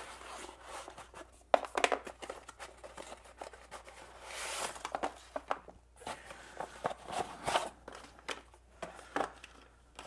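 Hands handling a small cardboard product box and its contents: a run of light taps, clicks and paper rustles, with a longer swishing rustle about four seconds in.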